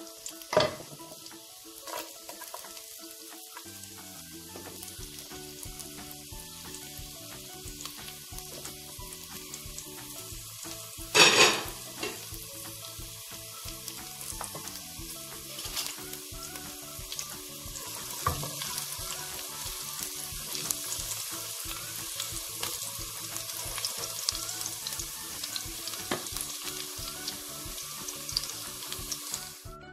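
Minced garlic frying in olive oil in a non-stick pan: a steady sizzling hiss that grows livelier in the second half. Quiet background music plays under it, and a brief loud burst of noise comes about eleven seconds in.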